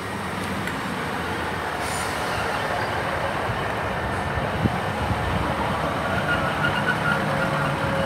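Two coupled Class 153 diesel railcars, each driven by a Cummins diesel engine, pulling into the station, their running noise growing slowly louder. A steady high squeal comes in near the end as the train slows.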